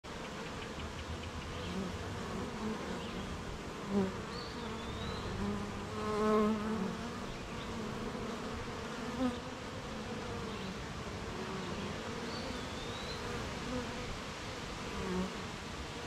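Honeybees buzzing around their hive: a steady, many-voiced hum. Single bees fly close past several times, louder buzzes about 4, 6 and 9 seconds in.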